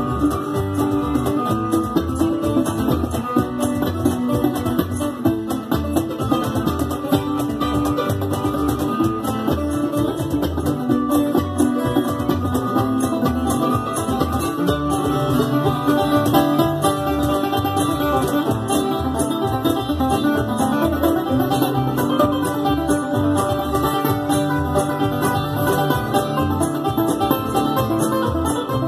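Live string band playing an instrumental passage of a bluegrass tune, with banjo picking over acoustic guitar and upright bass.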